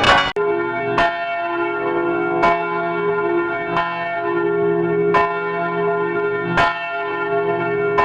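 Church bells ringing: a stroke about every second and a half, each ringing on into the next, with several bell tones sounding together. Just after the start one bell recording cuts off abruptly and another begins.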